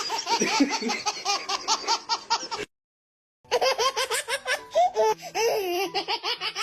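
Baby laughing in quick, repeated high-pitched bursts. It cuts off suddenly about two and a half seconds in, and after a short silence laughing starts again.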